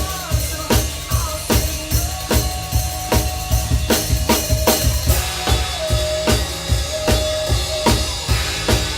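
Drum kit played in a steady groove of kick, snare and cymbals over a recorded song with a melody line.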